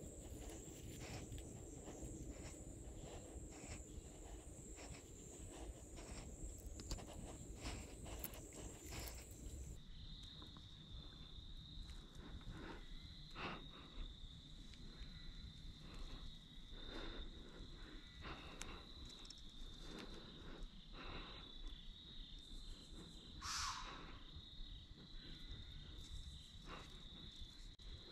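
Steady insect chorus of crickets, a high continuous trill that gives way abruptly about ten seconds in to a lower steady trill. Scattered small clicks and rustles of movement sound close by, with a short louder swish late on.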